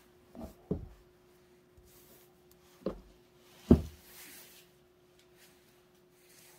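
Brush calligraphy at a writing desk: four dull knocks from handling the brush and inkstone, the last and loudest just past the middle, followed by a faint swish of the brush on paper. A steady faint hum runs underneath.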